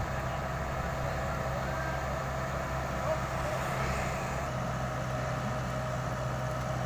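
Komatsu PC78US mini excavator's diesel engine running steadily, an even low hum with no breaker hammering.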